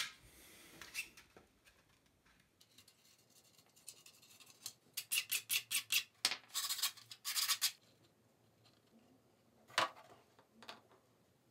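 Hands working 3D-printed PLA plastic parts: a run of quick scratchy strokes, about five a second, midway, then two longer scratches. A few sharp knocks of hard plastic come at the start and near the end.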